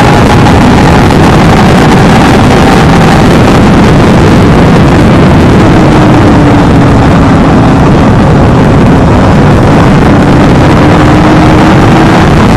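Heavy wind blasting over the microphone at high speed, loud and constant, with the high-revving whine of a Kawasaki Ninja 300's parallel-twin engine faint beneath it. The engine note sags around the middle, then slowly climbs again.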